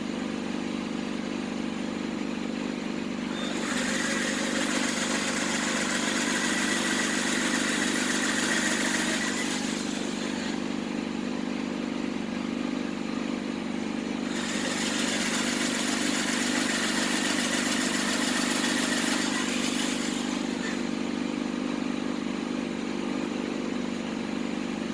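Electric drill boring holes for 5 mm screws in a washing machine's stainless steel drum, running twice for about six seconds each with a steady high whine, over a steady low hum.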